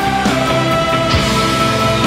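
Music soundtrack: sustained held notes over a drum beat, loud and even.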